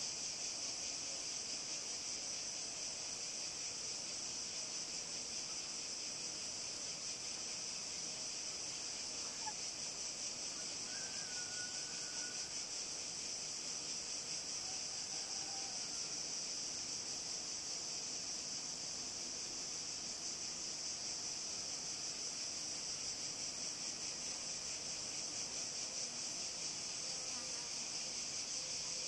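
Dense, steady high-pitched chorus of insects chirring.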